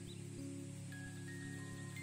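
Background music of slow, held notes, a new note coming in every half second or so.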